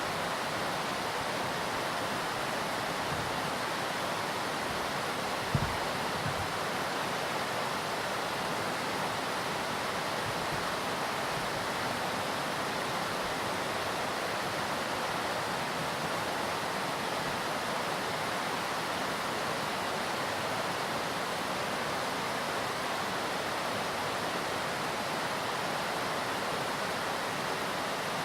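Hakusen no Taki waterfall: a steady, unbroken rush of heavy falling water. A brief low thump about five and a half seconds in.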